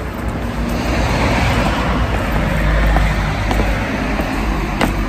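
Road traffic noise: a car passing, its tyre and engine noise swelling to a peak about halfway through and then easing off.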